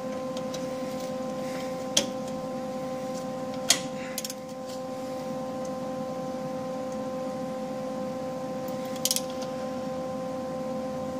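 A socket ratchet worked on a nut welded onto a broken exhaust-manifold bolt, giving a few separate sharp metallic clicks and a quick run of clicks about nine seconds in, over a steady hum.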